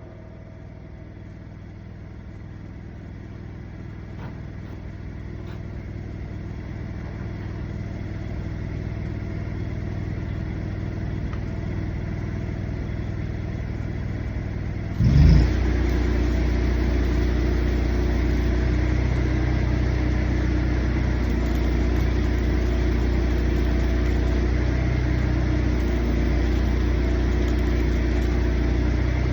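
An engine runs steadily and grows slowly louder. About halfway through there is a thump, and it steps up to a louder, steady run.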